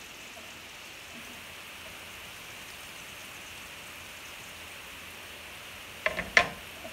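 Carrots and beetroot frying in sunflower oil in a pan, a steady sizzle. About six seconds in, a few sharp knocks as a cutting board is set down on the stovetop.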